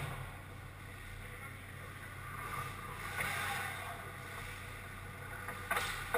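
Ice hockey play close to the net: skate blades scraping on the ice as players move in, and sharp knocks of stick or puck on the boards, one at the start and two near the end, over a steady low hum.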